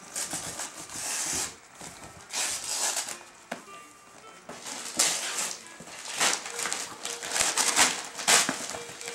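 Christmas wrapping paper being torn and crinkled off a flat gift box, in irregular rustling bursts.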